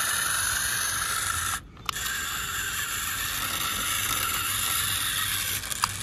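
Electric motor and gearbox of a remote-control Swaraj 855 FE model tractor running with a steady mechanical whir, cutting out briefly about a second and a half in and again near the end. The tractor is struggling to climb out of a dirt hollow, too light to get grip.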